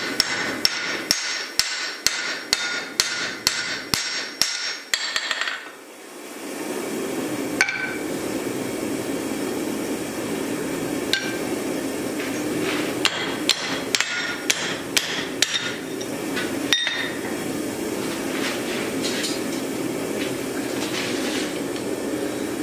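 Hand hammer striking a slot punch driven into a red-hot steel axe blank on the anvil, punching the axe's eye: a fast, even run of ringing strikes, a little over two a second, for about the first five seconds. After a pause come single strikes and a second quick burst of blows around the middle, over a steady rushing noise.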